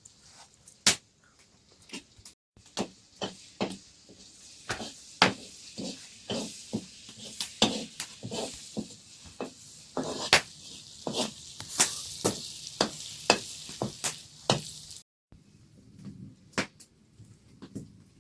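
Cooking in a pan: irregular knocks and clinks of a utensil against the pan, over a steady hiss like food frying through most of the middle.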